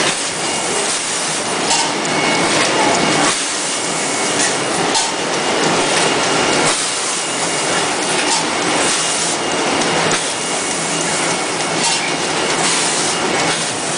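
Tissue-paper machinery running, a loud steady mechanical clatter with scattered clicks and a faint high whine over it.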